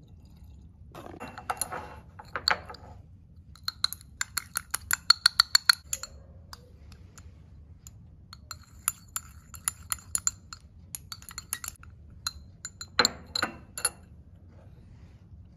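Glass stirring rod clinking quickly against the inside of a glass beaker while stirring copper(II) chloride crystals to dissolve them in water, in two long runs of ticks. Before that a short hiss of water squirted from a plastic wash bottle, and near the end a brief clatter.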